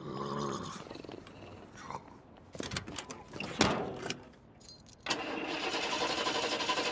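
A short grunt, then clicks and clunks of a car door and keys, then a steady rushing noise for about two seconds near the end.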